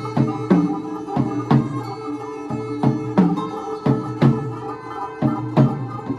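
Live band music: drums striking a steady beat over bass and sustained string tones.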